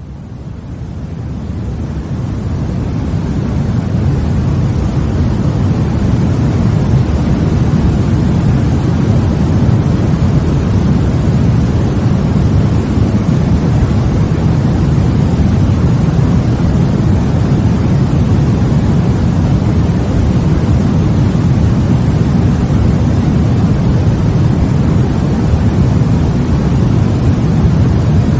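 Steady white-noise sleep sound: an even, featureless rush weighted toward the low end, like a deep rumble. It fades in over the first few seconds, then holds level.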